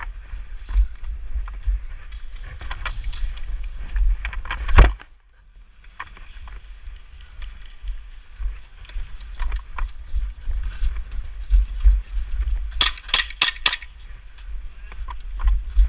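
An airsoft player moving on foot: footsteps, gear rattle and low rumble on a body-worn microphone. There is one sharp crack about five seconds in and a quick string of about five cracks near the end.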